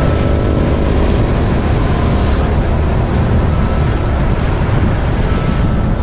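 A vehicle running on the road, its engine and road noise mixed with heavy wind buffeting the microphone.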